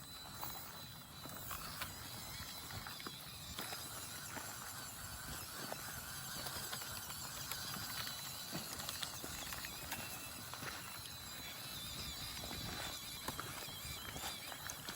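Redcat Ascent-18 1:18 brushed electric RC rock crawler driving over rough ground: a faint wavering whine from its motor and gears, with scattered clicks and knocks from the tyres and chassis.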